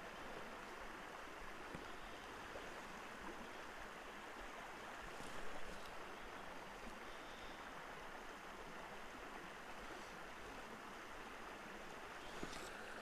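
Faint, steady rush of a small trout creek's flowing water, briefly louder about five and a half seconds in.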